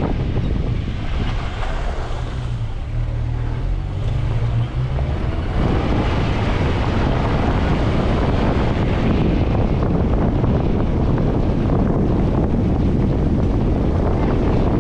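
Suzuki Grand Vitara off-roader driving, its engine running under heavy low rumble and wind buffeting on the microphone. A steady engine note is clearest a couple of seconds in, then a louder rough rushing noise takes over from about five and a half seconds.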